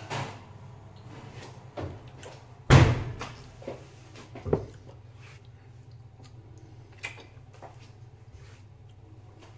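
Oven door shut with one loud knock about three seconds in, followed by a few lighter knocks and clatter.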